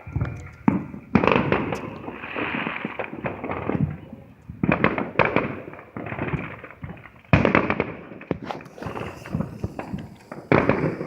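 Consumer fireworks going off in rapid strings of sharp cracks and pops, with loud clusters about a second in, around five seconds, just after seven seconds and near the end.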